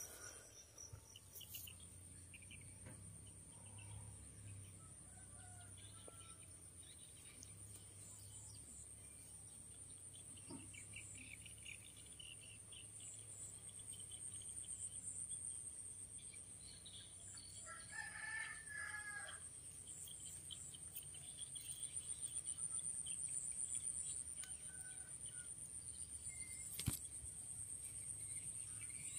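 Faint outdoor ambience of a steady, high insect drone, with a few faint bird chirps and a rooster crowing once about eighteen seconds in. A single sharp click comes near the end.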